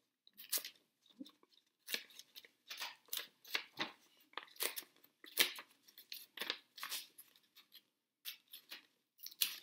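Paper being torn by hand along a line of push-pin holes, in a series of short, irregular rips with brief pauses between them.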